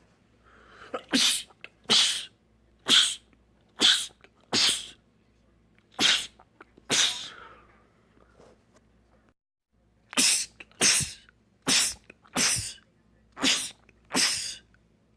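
A man sneezing over and over in quick succession: seven sneezes about a second apart, a short pause, then six more.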